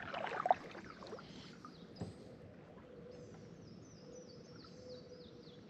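Kayak paddle stroke splashing and dripping near the start, with a single knock about two seconds in. Then a bird sings a quick run of high, down-slurred notes, several a second.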